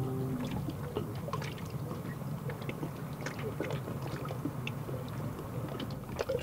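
Water lapping and splashing, with many small irregular splashes and drips over a steady wash.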